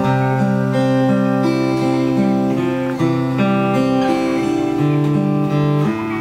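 Solo acoustic guitar playing a fingerpicked arpeggio, its notes ringing on into each other.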